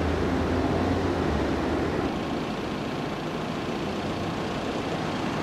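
Street traffic noise: a vehicle engine's low rumble fades out about a second and a half in, under a steady wash of traffic.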